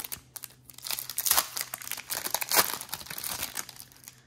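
A trading card pack wrapper being torn open and crinkled by hand, a dense run of crackling and tearing that fades near the end.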